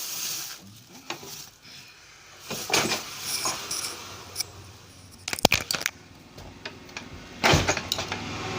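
Small LED bulb parts being handled and fitted together by hand: scattered light clicks and clinks of plastic and metal, with a sharp click about five and a half seconds in.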